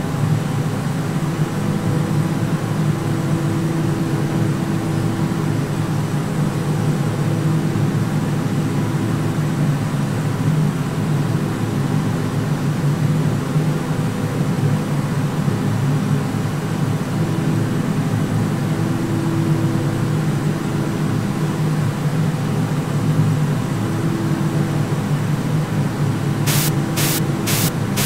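Steady, noisy ambient drone with a low hum and a held tone that fades in and out. Near the end comes a run of sharp, evenly spaced high ticks, about two or three a second.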